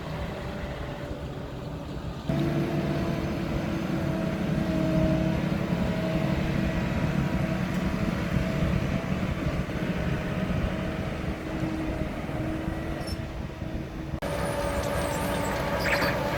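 Farm machinery engines running steadily as a continuous drone, with the sound changing abruptly about two seconds in and again near the end.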